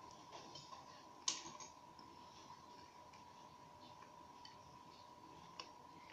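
Faint clicks and handling noise from fingers working the wires and small plastic parts inside an opened Nikon SB-600 flash head, with one sharper click about a second in. A faint steady high tone runs underneath.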